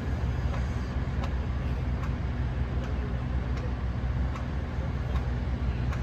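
Mobile crane's diesel engine running steadily with a low drone, with a few faint, irregular ticks over it.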